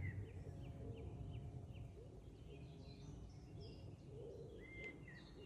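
Several forest songbirds singing: a quick run of short falling notes, then higher chirps and a level whistled note near the end, over a steady low rumble of background noise.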